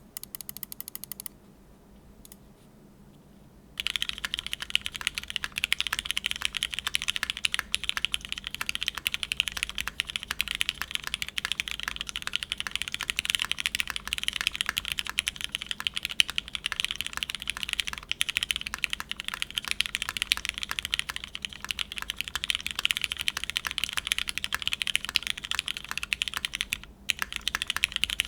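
Mechanical keyboard typing on Cherry MX Black linear switches, stem-lubed, under GMK keycaps on an aluminium plate. It is a dense, steady stream of keystrokes that starts about four seconds in and breaks briefly just before the end.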